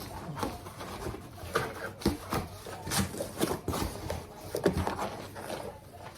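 A cardboard shipping box being handled and opened, with irregular knocks, scrapes and rubbing, several sharp knocks standing out.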